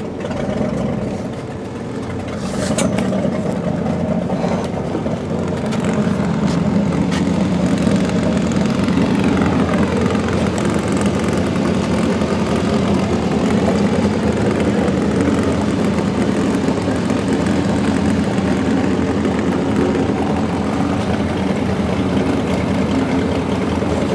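Car engine idling steadily, getting louder over the first few seconds and then holding even, with a few light clicks early on.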